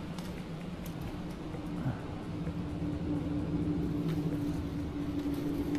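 A steady low mechanical hum holding two low tones, with a few faint clicks.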